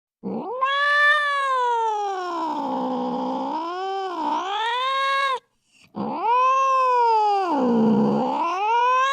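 Domestic cat giving two long, drawn-out yowls. Each one rises, sags low in pitch in the middle, then climbs back up. The second yowl begins about six seconds in.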